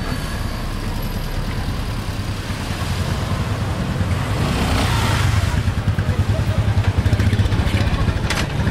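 Street traffic of motor scooters and cars, with a small motor scooter's engine passing close by and getting louder through the second half. A brief sharp click near the end.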